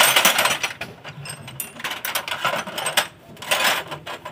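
Metal hand tools clicking and rattling against a motorcycle engine's magneto parts during removal of the flywheel magnet: a dense run of clicks at first, then scattered clicks and short rattles.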